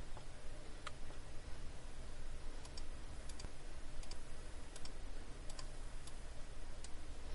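Faint, irregular clicks of a computer mouse, a dozen or so spread unevenly, over a steady low hum and hiss.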